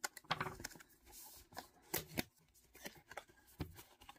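Small cardboard product box being handled and opened: soft rustles and scraping of the card, with scattered light taps as it is set down and tilted.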